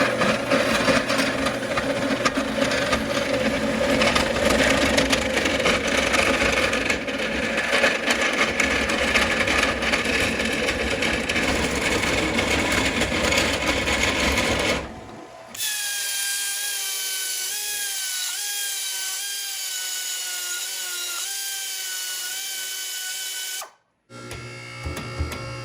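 Power drill working steel for a gusset: a harsh, noisy run for about fifteen seconds. It cuts off sharply, then a steadier high whine dips in pitch several times in small steps. After a brief gap near the end, another short burst of tool noise.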